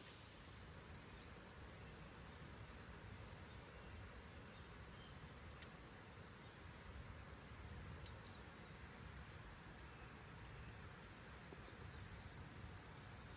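Faint bird calls: a series of short, repeated chirps over a low, steady background rumble, with a few scattered faint clicks.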